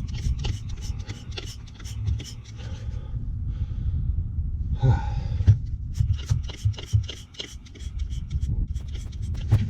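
Quick, regular hissing strokes, about three a second, from hand cleaning of a plugged HVAC condenser coil, over a steady low rumble. The strokes pause for a couple of seconds near the middle, where there is one louder hiss.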